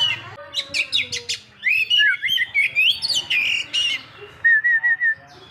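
Oriental magpie-robin (kacer poci) singing a loud, varied song of whistles, quick sharp notes and gliding phrases, ending with a short run of four repeated notes.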